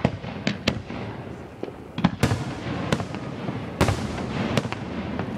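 Aerial fireworks going off in a quick series of sharp bangs, about eight in five seconds, with a rumble carrying on between them.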